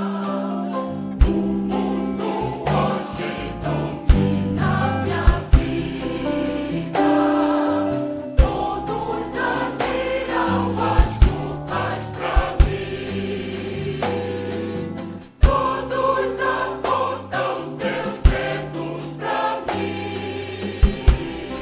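A choir singing a gospel song with instrumental accompaniment: a moving bass line under the voices and sharp percussive strikes every second or few seconds.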